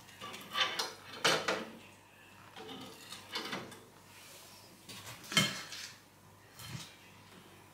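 Kitchenware being handled: a handful of separate knocks and clatters of dishes, the loudest a little past five seconds in.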